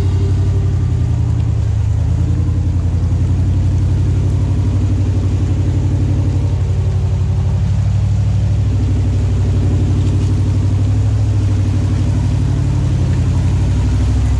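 Engine of an off-road vehicle running at low revs, a steady low rumble whose pitch rises and falls gently.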